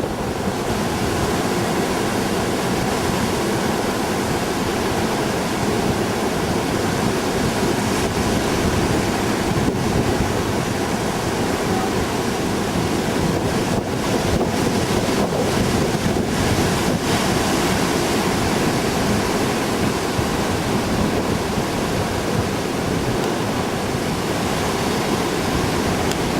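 Rough storm surf breaking continuously along the beach, with strong gusty wind blowing on the microphone, as one steady wash of noise.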